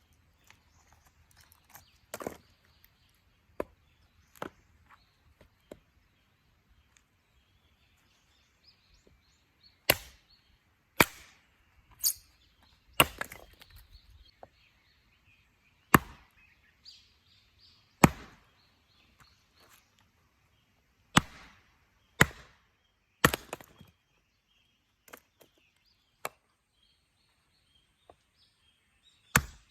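Husqvarna hatchet chopping and splitting firewood: about fifteen sharp blows into wood at irregular intervals, the hardest ones coming in a run through the middle, with light cracking of the wood between strikes.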